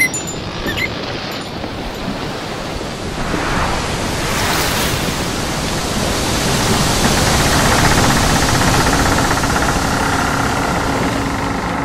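A steady rushing noise like breaking surf, an ocean-wave sound effect, that swells gradually and is loudest about two-thirds of the way through.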